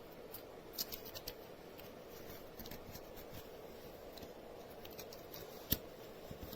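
Faint small clicks and scratches of a coin-cell battery and its cap being handled at a rifle scope's battery compartment, with a few light ticks about a second in and one sharper click a little before the end.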